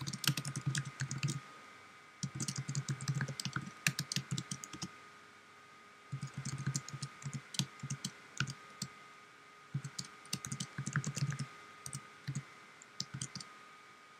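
Typing on a computer keyboard: quick runs of key clicks in about five bursts with short pauses between them, over a faint steady high hum.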